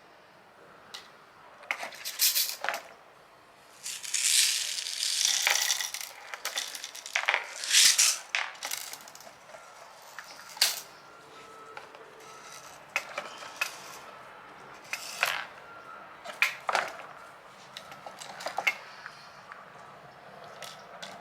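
Small metal objects clinking and rattling, with irregular sharp clicks; the rattling is busiest in the first half and thins to scattered clicks later.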